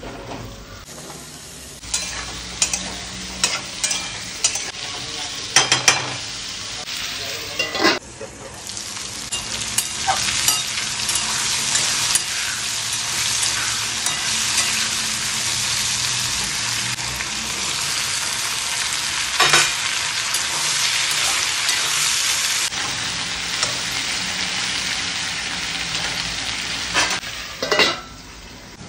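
Sliced potatoes sizzling as they fry in hot mustard oil in an aluminium kadai. A metal spatula scrapes and knocks against the pan as they are stirred. Near the end the lid goes on with a clink and the sizzling drops away.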